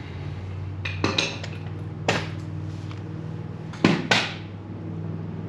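Sharp metallic clanks and knocks from tools and metal parts being handled, about five hits, the loudest a little before four seconds in, over a steady low hum.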